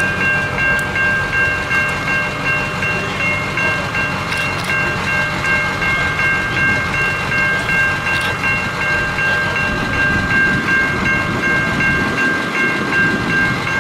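Railroad grade-crossing warning bell ringing continuously in a steady, even rhythm, with a low engine rumble underneath.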